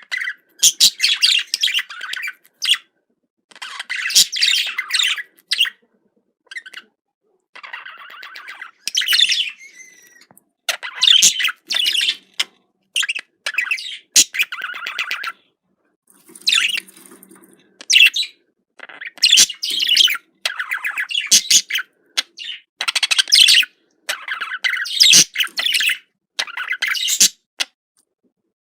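Budgerigar chattering and warbling in bouts of rapid chirps a second or two long, with short pauses between them.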